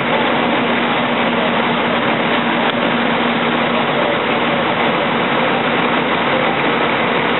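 A large engine running steadily, a loud even noise with no change in pitch or level.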